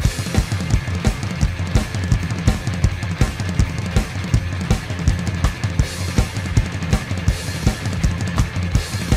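Electronic drum kit played along to a rock song: a fast, steady beat of kick drum, snare and cymbal hits over the full band.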